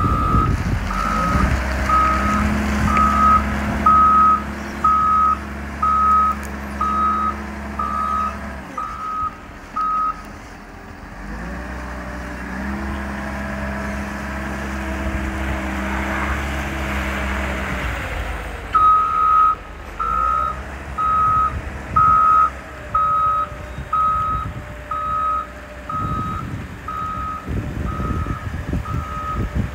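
Caterpillar IT28G wheel loader's backup alarm beeping about once a second as it reverses, over its running diesel engine. The beeping stops for several seconds midway while the engine note rises and falls, then starts again.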